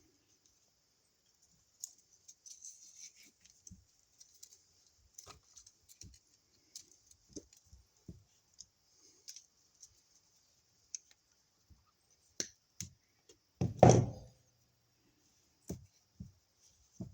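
Scattered small clicks and taps of electrical cable and tools being handled at a wall outlet box as wires are fed into it, with one louder knock about fourteen seconds in.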